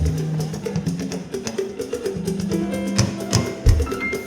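Church band music playing: a steady rhythm of sharp percussion clicks over sustained bass notes and other instruments, with no singing yet.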